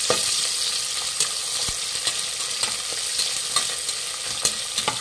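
Sliced onions sizzling in hot oil in an aluminium pressure cooker, frying toward golden brown. They are stirred with a metal spatula that scrapes and taps against the pot every second or so.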